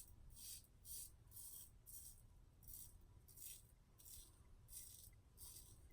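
Double-edge safety razor (Merkur long handle) scraping through lathered stubble in short, faint strokes, about two a second.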